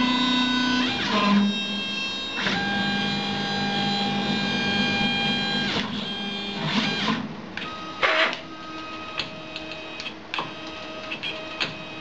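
Drive motors of a CNC plasma table moving the gantry and torch head: a steady pitched whine that jumps to a new pitch each time the motion changes speed or direction, with short clicks at the changes. After about eight seconds it goes quieter, broken by scattered ticks.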